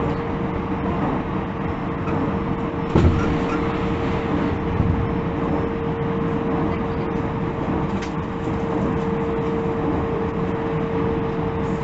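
Inside a JR 313 series 0-subseries electric train: steady running noise with a constant single-pitch whine held throughout, the unpleasant abnormal noise this train makes. A single knock about three seconds in.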